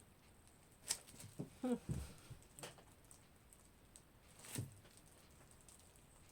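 Small handling sounds of glued pottery being fitted together: a few light clicks and taps, with a short cluster with a brief ringing note about two seconds in, and another tap past halfway.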